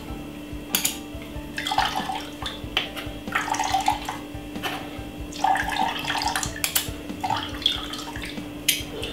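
Blended sugar cane juice trickling through a fine mesh strainer into a glass measuring jug. It comes in uneven splashy bursts every second or two as the strainer is worked, with occasional clicks and a faint steady hum underneath.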